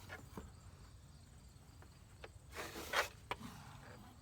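Faint handling noise: a few light clicks, then a short scratchy rub or scrape about three seconds in, ending in a sharp click, over a low steady hum.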